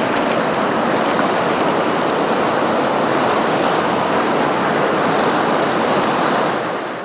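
Shallow river current running steadily around the angler's legs, with a short splash from a shad on a chain stringer near the start and a brief tick about six seconds in.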